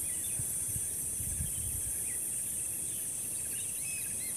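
Steady high-pitched chorus of insects, with a few faint short bird chirps scattered through it.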